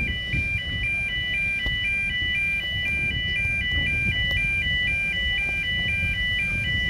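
Railway level crossing warning alarm: an electronic two-tone sound switching between two pitches about four times a second, steady throughout, over a low background rumble.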